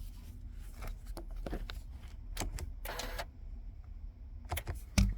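Scattered clicks and light knocks of hands working buttons and controls inside a car's cabin, with a short rustle about three seconds in and a heavier thump near the end.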